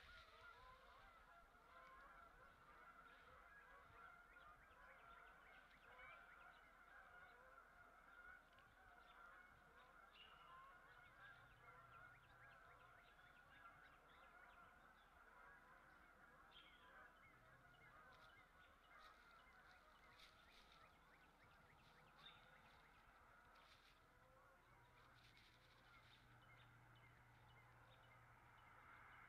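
Faint, continuous chatter of a distant flock of birds calling over one another.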